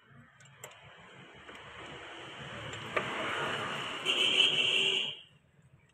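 Machine noise grows steadily louder for about five seconds, then cuts off suddenly, with a couple of light clicks along the way.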